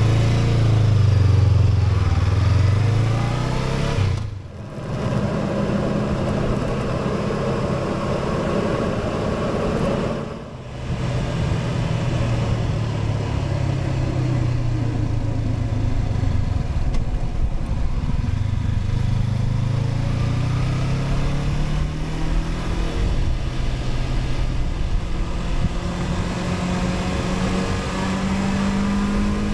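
Honda CB500X's parallel-twin engine under way, pulling away and accelerating. The engine note rises and falls with the throttle. It dips briefly twice, about four and ten seconds in, as the rider shifts gear, then runs on steadily and climbs again near the end.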